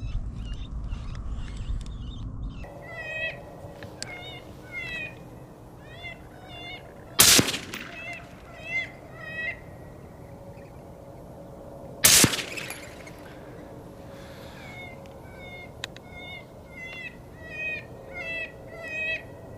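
Electronic game caller playing a squeaky prey-distress call: runs of short, high-pitched squeaks repeating in quick series. Two loud sudden thumps cut through it, about seven and twelve seconds in, and low wind rumble fills the first couple of seconds.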